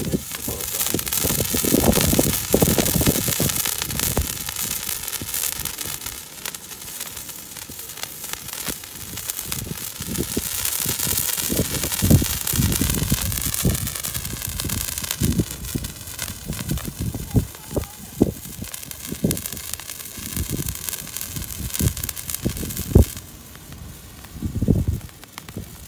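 Handheld spray fireworks burning with a loud, steady hiss and scattered sharp crackles and pops. The hiss dies down near the end as the fountains burn low.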